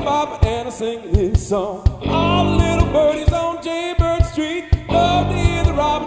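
Live rock band playing an upbeat rock and roll song: a male lead vocal over electric guitar, bass, keyboards and a steady drum beat.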